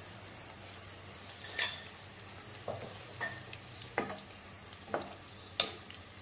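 A wooden spatula stirring coconut milk and cornflour into a pan of beef stew, knocking sharply against the pan several times, about once a second, over a low steady hiss from the pan.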